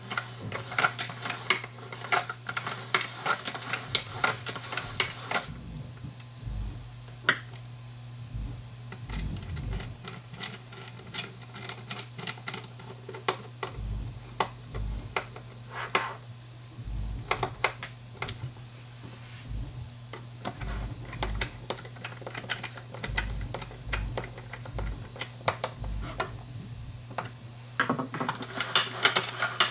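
Irregular clicking and rattling of small plastic fittings being handled and fitted onto a curtain track on a wooden bench, dense and rapid for the first few seconds and again near the end, with screwdriver work on the track's end cap in between. A steady low hum underneath.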